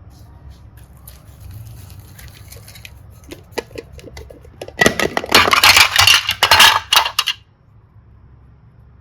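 Small hard objects clicking and clattering: scattered light clicks, then a loud, dense run of crackling clicks about five seconds in that stops suddenly after two seconds or so.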